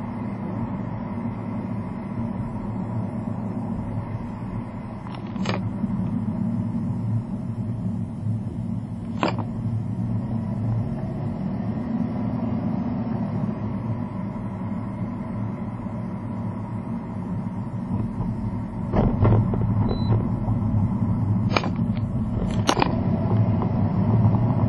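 Steady road and engine rumble of a car heard inside the cabin, with a few short sharp clicks or knocks scattered through and several close together near the end. The rumble grows louder about three quarters of the way in.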